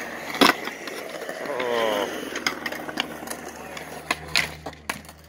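Skateboards on concrete: a sharp, loud board clack about half a second in, then scattered smaller clacks and knocks, with a cluster around four seconds. A distant voice calls out about two seconds in.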